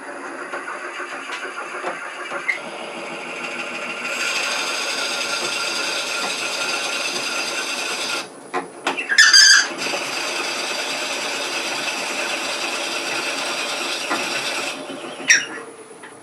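Powermatic lathe running at low speed while a bit in the tailstock drills a counterbore into a spinning wooden pepper mill blank: a steady motor hum, with a cutting hiss that grows louder about four seconds in. About nine seconds in there is a short loud squeal. The drilling then runs on until about fifteen seconds in, followed by a sharp squeak.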